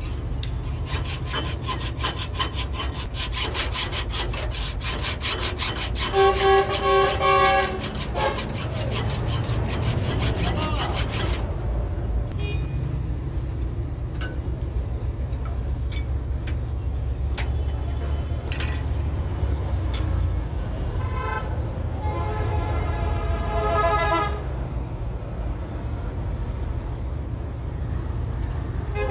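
Vehicle horns toot over a steady low rumble of engines: a pair of toots about six seconds in, and a longer run of toots around twenty-two seconds. For the first eleven seconds or so, rapid clicking runs alongside and then stops abruptly.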